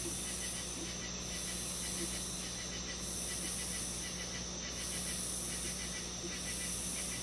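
Steady background hiss and low hum, with a faint high buzzing that breaks off and resumes every second or two.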